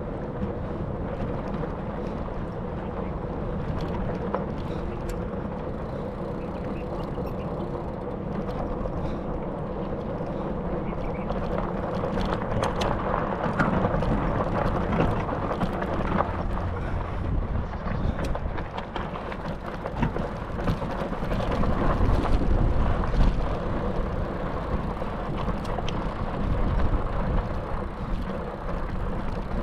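Motorbike engine running steadily during a ride, mixed with wind noise and scattered rattling ticks; it gets louder around the middle and again a little past two-thirds of the way through.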